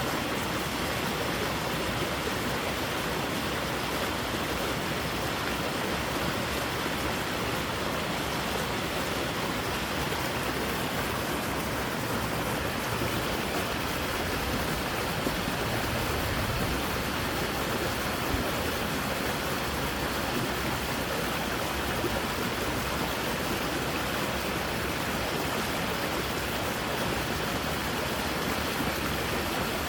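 Water rushing through a creek: a steady, even rush without breaks.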